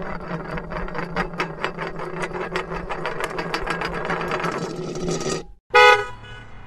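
Rapid mechanical clicking, like a ratchet or wind-up mechanism, about five clicks a second and speeding up slightly, over a low hum. It stops abruptly and is followed by a short, loud pitched note near the end.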